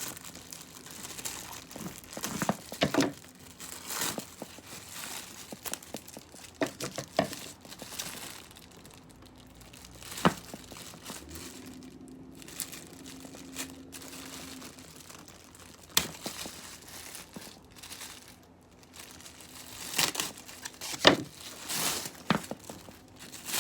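Packaging being handled, crinkling and rustling in irregular spurts, with a few sharper snaps.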